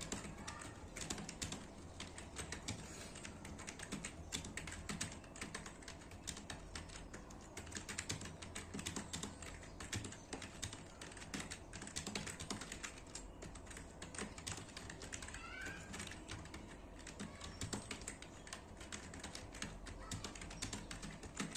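Fast, continuous typing on a computer keyboard: a dense, irregular run of key clicks with brief pauses. A short wavering pitched call cuts in about three quarters of the way through.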